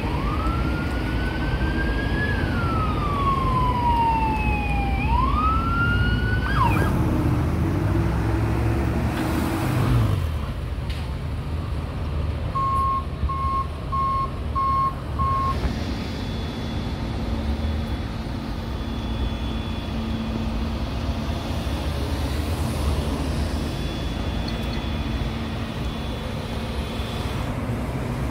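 An emergency vehicle's siren wailing, its pitch sliding up, down and up again over several seconds before it cuts off suddenly, over traffic and engine noise. Later there are five short beeps in a row, then steady traffic with a low engine hum.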